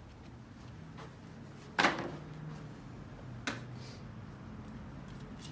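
A loud thud about two seconds in and a sharper click a second and a half later, over a low steady hum.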